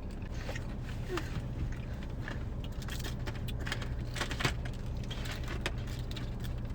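Steady low hum of a parked car idling, with scattered small clicks and crackles from eating crunchy onion rings and handling the food.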